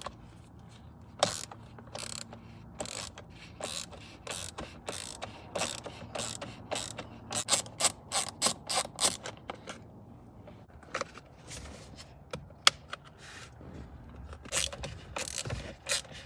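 Socket ratchet clicking in quick runs as the 10 mm bolts holding the driver's airbag are loosened behind the steering wheel, with a short break about ten seconds in.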